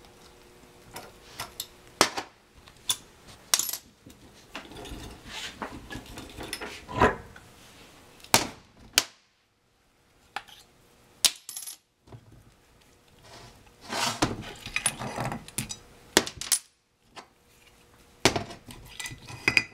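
Eaton Posi limited-slip differential being taken apart by hand: irregular metallic clinks and clanks as its steel cross shaft, gears and clutch plates are pulled out and set down on a steel bench.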